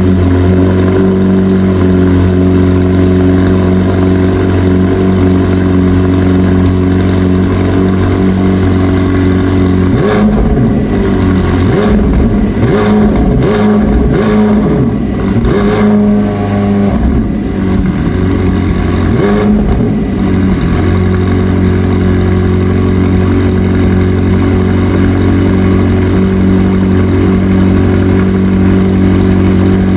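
McLaren 750S twin-turbo V8 idling steadily, then revved in a series of throttle blips for about ten seconds, rising and falling in pitch, before settling back to a steady idle.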